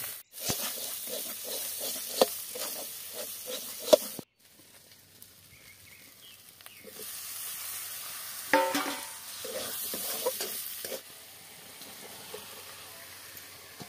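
Spice masala frying in an iron wok, sizzling while a steel spatula scrapes and clinks against the pan in quick strokes. The sound drops away sharply about four seconds in, then the sizzling and scraping return, with one louder scrape just past the middle.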